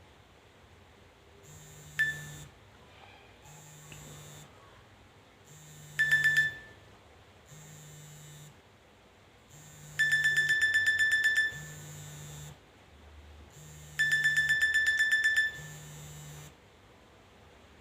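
Nokia E63 ringtone: a low electronic buzz about every two seconds, with high beeps between the buzzes. Single short beeps come about two and six seconds in, then longer rapid trains of about ten beeps a second around ten and fourteen seconds in, the loudest parts.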